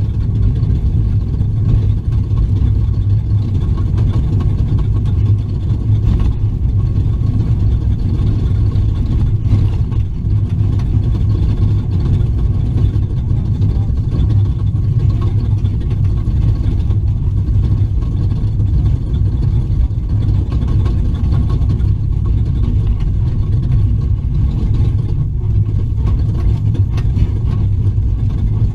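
Raptor desert race truck driven at race pace, heard from inside the cab: a loud, steady low rumble of engine and drivetrain with road noise that does not let up.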